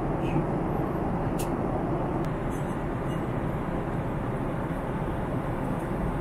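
Steady cabin noise of a Boeing 777-300 airliner in flight: a constant low rumble and rush of airflow and engines. A couple of faint light clicks come in the first few seconds.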